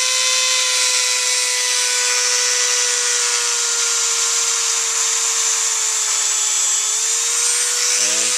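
Dremel rotary tool running at steady high speed with a buffing wheel, a continuous high-pitched whine, as white polishing rouge is loaded onto the spinning wheel and the wheel is worked across a metal side plate. The pitch sags slightly for a moment about six seconds in, then comes back up.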